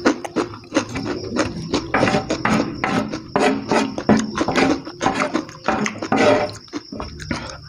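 Close-up eating sounds: repeated crunching and chewing of crispy battered fried chicken, with wet mouth sounds, and a metal spoon scraping sauce across the paper-lined table.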